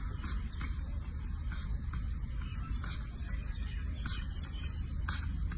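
Baby macaque sucking on a milk bottle, with soft irregular clicks about once or twice a second over a steady low hum.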